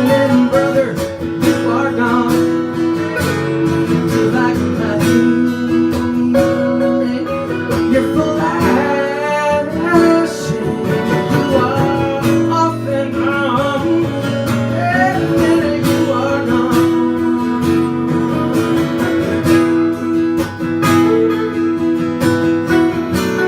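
Acoustic guitars playing an instrumental passage: steady strummed chords with a picked melody line weaving over them.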